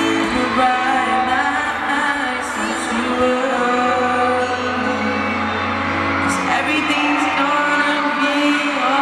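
Live pop performance: a male singer singing a slow, sustained melody into a headset microphone over musical accompaniment, heard through a stadium PA.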